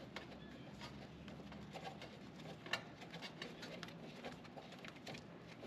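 Faint, scattered small clicks and taps of hands working the brass service-valve fittings and hose connectors on an air-conditioning condenser.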